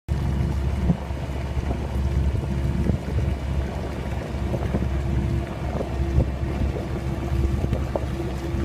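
Underwater recording: a steady low rumble with a steady mid-pitched hum and scattered sharp clicks, starting suddenly.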